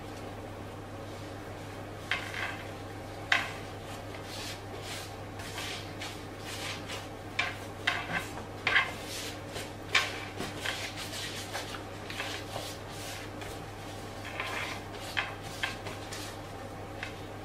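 Gloved hands rolling and stretching yeast dough on a wooden board and handling a foil butter wrapper: irregular soft taps, knocks and rustles, busiest in the middle, over a steady low hum.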